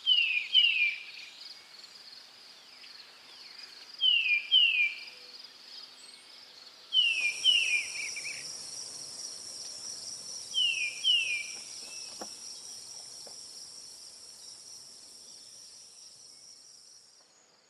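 Steady chorus of insects such as crickets, with a pair of short, sharp falling chirps every three to four seconds. A second, higher insect buzz joins about seven seconds in, and the sound fades out at the end.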